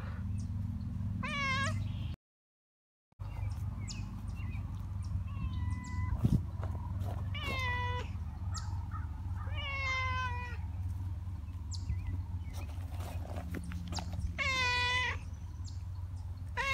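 Black-and-white cat meowing repeatedly, about five short meows spread across a few seconds, over a steady low rumble. The sound drops out completely for about a second near the start.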